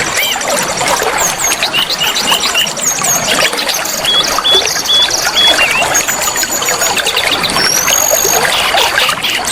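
Steady trickling, flowing water with an oriental magpie-robin singing over it: short whistled notes, quick repeated chirps and rising glides.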